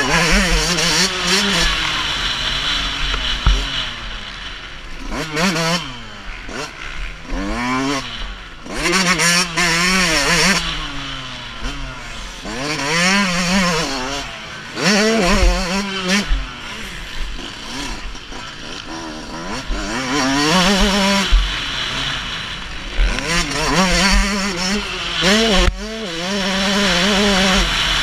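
Two-stroke motocross bike engine racing, revving up and dropping back again and again as the rider works the throttle and shifts through the gears, heard from the rider's helmet camera with a low wind rumble underneath.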